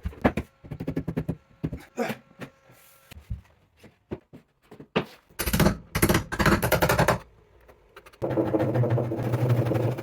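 Workshop sounds of building with plywood: a run of sharp knocks and taps, with a dense cluster of impacts about six seconds in. About eight seconds in, a power tool's motor starts and runs steadily.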